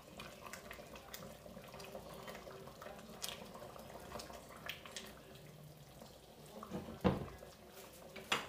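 Tomato sauce with meatballs simmering in a stainless steel pot, faint bubbling and small pops with a wooden spoon stirring through it. Two louder knocks come near the end.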